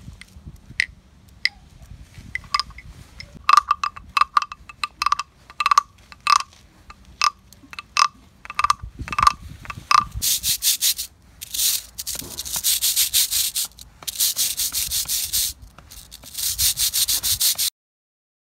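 Wooden claves (rhythm sticks) tapped in an irregular pattern, each stroke a short hollow click. From about ten seconds in, a frog-shaped wooden guiro is scraped with a stick in several runs of rapid rasping strokes, cutting off suddenly near the end.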